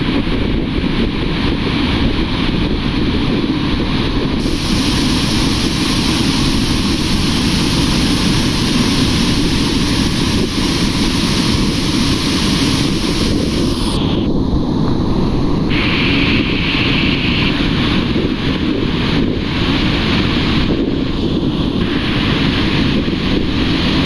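Steady, loud rush of a waterfall, with wind buffeting the microphone.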